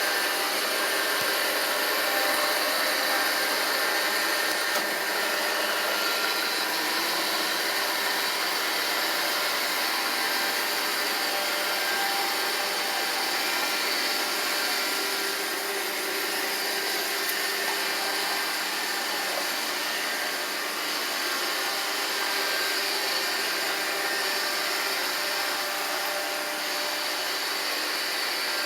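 iRobot Roomba 780 robot vacuum running: a steady whir of its vacuum motor and brushes, with a few faint high tones held steady.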